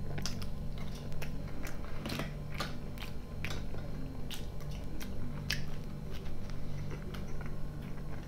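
Close-miked chewing of a spoonful of soft salad, with wet mouth clicks and smacks at irregular intervals, several a second.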